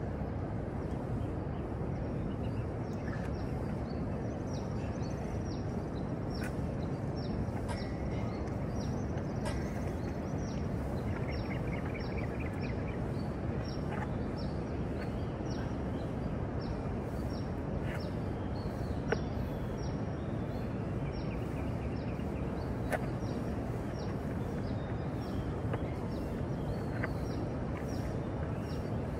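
City outdoor ambience: a steady low rumble of distant traffic with birds chirping over it again and again, a short trill near the middle, and a few faint clicks.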